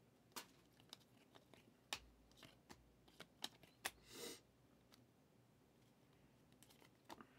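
Panini Prizm football trading cards handled in a stack: faint clicks and flicks as cards are flipped one behind another, then a short sliding swish about four seconds in, then near quiet with two faint clicks near the end.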